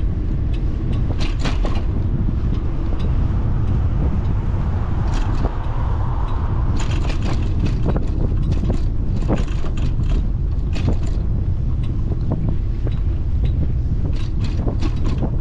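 Wind buffeting the microphone of a camera on a moving bicycle, a steady low rumble, with frequent irregular clicks and rattles as the bike rolls over the pavement. A broad swell of noise rises and fades about five to seven seconds in.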